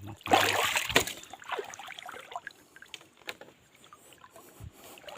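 Water splashing briefly about half a second in, as a caught fish is lowered into the water to revive it, followed by small drips and light knocks.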